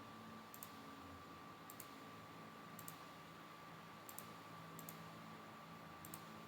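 Computer mouse clicking faintly, about six times spread across the few seconds, each click a quick double tick, over a faint steady high hum.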